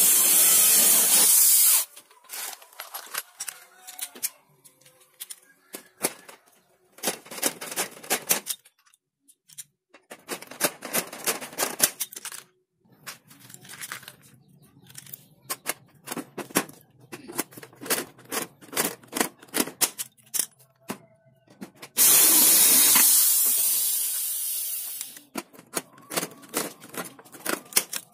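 Corded electric drill running as it bores into an aluminium frame profile for about two seconds. Then runs of rapid sharp clicks as a hand pop-rivet gun is worked to set rivets. The drill runs again for about three seconds later on, its sound trailing off.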